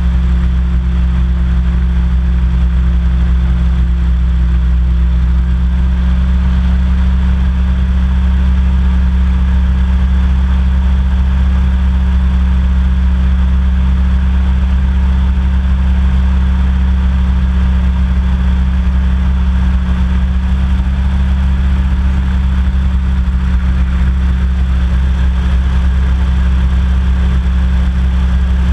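Small personal hovercraft's engine and fan running steadily under way, a constant low drone with no change in pitch.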